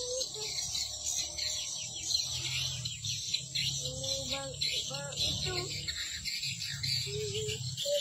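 Recorded edible-nest swiftlet calls: a dense, continuous high twittering of many birds at once, the 'external' lure sound played outside a swiftlet house to draw birds in. Lower wavering calls come and go underneath, most of them about halfway through, over a steady low hum.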